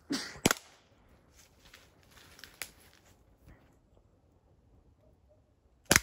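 Air gun fired once near the end: a single sharp crack, the loudest sound here. About half a second in there is a shorter, quieter click, with faint scuffs in between.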